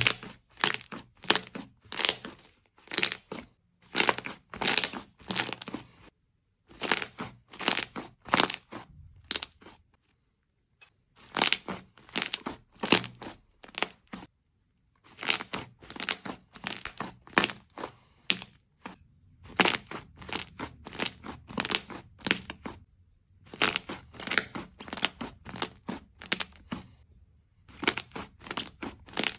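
Slime being squeezed and pressed, giving rapid crackling pops in bursts of one to three seconds with short pauses between.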